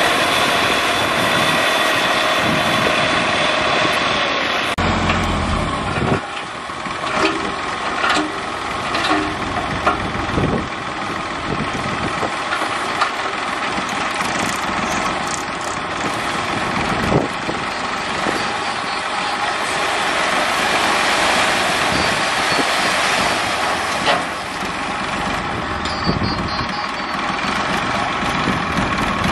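New Holland 3230 tractor's three-cylinder diesel engine running steadily while its hydraulic tipping trailer raises and dumps a load of broken stone, with scattered knocks and clatters of stone sliding off.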